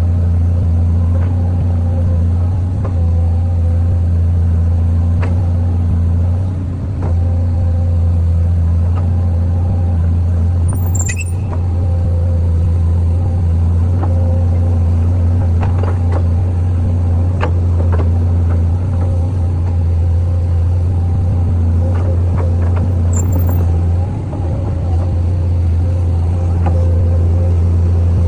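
Excavator's diesel engine running steadily under load with a strong low hum, with a few short sharp knocks scattered through.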